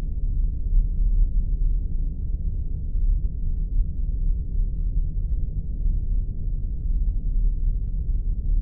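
Spaceship ambience sound effect: a steady, deep rumbling drone of a spacecraft's engines, with nothing high-pitched over it.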